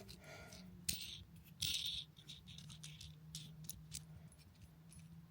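Faint scattered clicks and light clinks of small parts being handled and set down one by one: the washers and nuts taken off the stainless steel cistern-to-pan through bolts of a toilet. A brief rustling scrape comes about a second and a half in.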